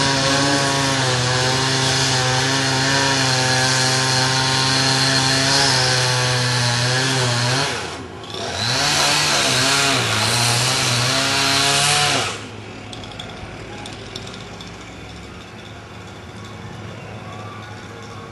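Chainsaw engine running at a steady high speed, briefly dropping out about eight seconds in, then revving up and down unevenly before cutting off abruptly about twelve seconds in. After that only a quieter background with faint clicks and knocks remains.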